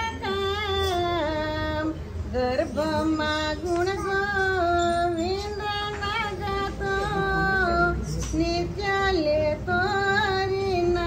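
A woman singing a bhajan, a Hindu devotional song, solo, in long held notes that step up and down between short breaths.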